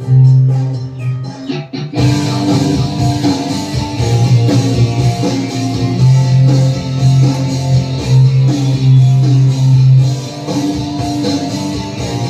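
Instrumental background music led by guitar; about two seconds in, more instruments come in and it becomes fuller and brighter.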